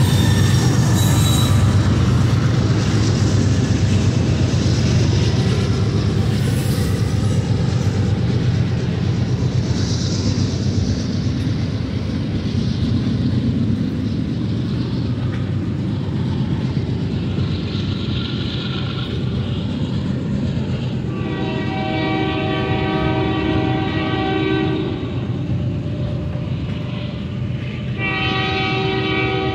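Heavy freight train passing close by: at first the diesel-electric locomotives at the rear of the lead consist rumble past, then the freight cars roll by over the rails with a steady rumble. About two-thirds of the way in a locomotive horn blows one long blast of some four seconds, and it sounds again near the end.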